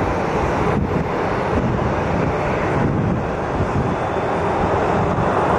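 Jet airliner climbing out after take-off: a steady, loud rush of engine noise, with wind buffeting the microphone.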